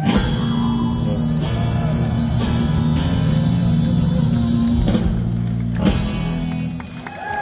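Live rock band playing the closing bars of a song, electric guitars and drums to the fore, ending with two accented hits about five and six seconds in before the sound dies down.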